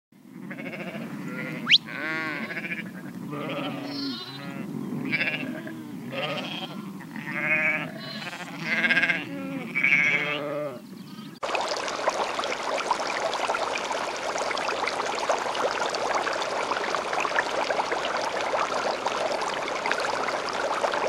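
Animals calling, several short pitched calls overlapping about once a second, with a sharp high squeak about two seconds in as the loudest moment. About halfway through it cuts abruptly to a steady, dense rushing noise.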